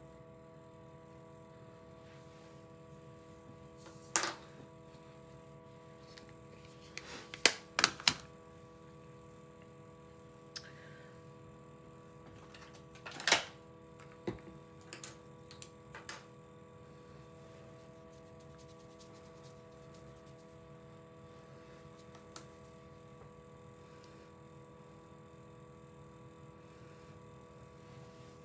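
Makeup items being handled on a tabletop: a handful of sharp clicks and knocks, one about four seconds in, a quick cluster of three around eight seconds, and a few more between thirteen and sixteen seconds, over a faint steady hum.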